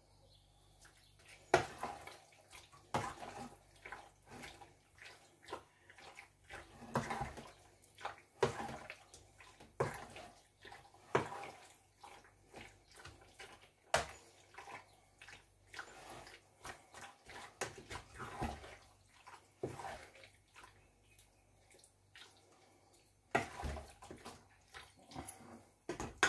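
Raw chicken pieces squelching as they are stirred and turned through a wet spice marinade in a metal bowl, with a few sharp clinks of a metal spoon against the bowl.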